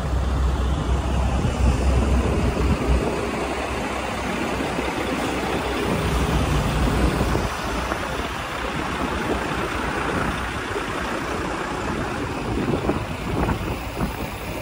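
A heavy truck's diesel engine idling: a steady low rumble, heaviest in the first few seconds, under an even wash of noise.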